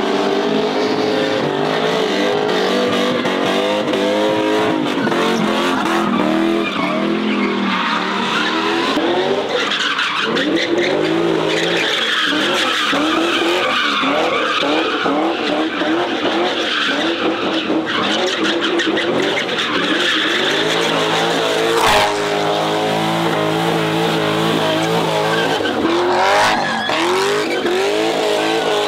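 Car engine revving hard in repeated rises and falls while the tires squeal and skid through donuts and burnouts. A single sharp crack cuts through about two thirds of the way in.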